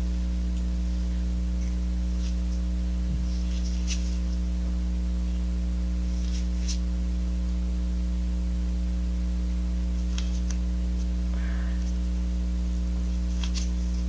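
Steady electrical mains hum, with a few faint light clicks.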